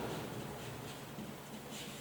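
Faint scratching of writing strokes over a low steady room hum.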